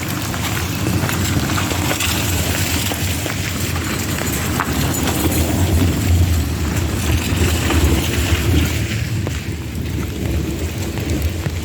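Steady rain falling, with a low rumble underneath that swells in the middle and eases near the end.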